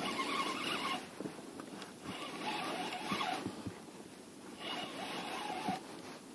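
Spinning reel being wound in three short spells of about a second each, whirring under the load of a heavy hooked fish, with a few faint knocks between.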